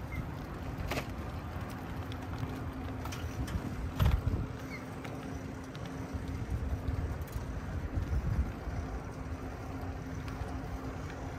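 Bicycle towing a dog trailer rolling along a paved path: a steady low rumble of tyres and wind, with a faint steady hum, a few light rattles, and a louder bump about four seconds in.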